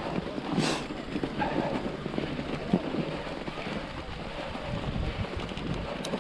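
Wind buffeting a GoPro Hero 7 Black's microphone: a steady rumbling hiss, with a brief louder rush just under a second in.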